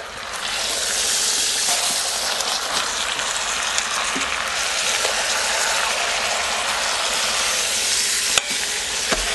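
Pork butt sizzling in hot oil in an Instant Pot's inner pot as it sears on the sauté setting, just after being flipped. The sizzle swells in the first half second and then holds steady, with two sharp clicks near the end.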